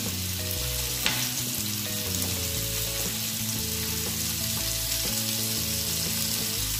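Chicken pieces and diced carrots sizzling as they fry in butter in a pan: a steady hiss, with a single sharp tap about a second in.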